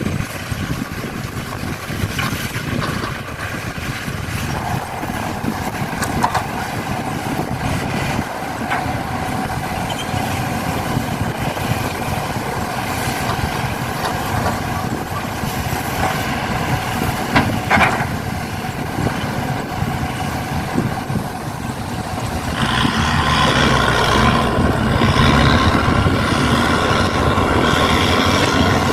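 Truck engine noise running steadily, which grows louder near the end with a whine laid over it.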